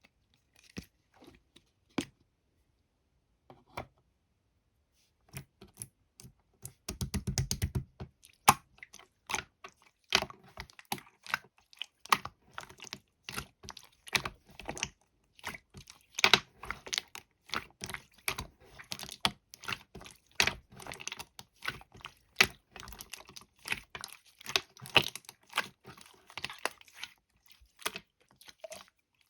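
Typing on a computer keyboard: scattered key clicks at first, then a dense, irregular run of keystrokes from about five seconds in, with a very fast rattle of clicks around seven seconds.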